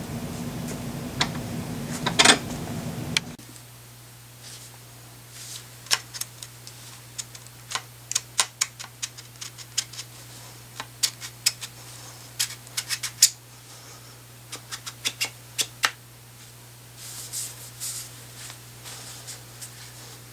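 Irregular sharp clicks and taps of tools and parts being handled while a Geissele SMR handguard is fitted to an AR-15, over a steady low hum. A loud knock comes about two seconds in.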